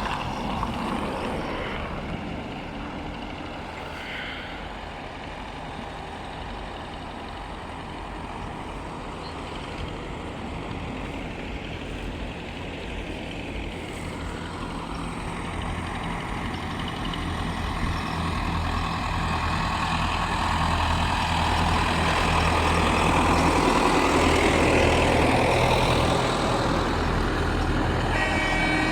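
A heavy vehicle's engine running with a steady low hum, growing louder over the second half as it comes closer.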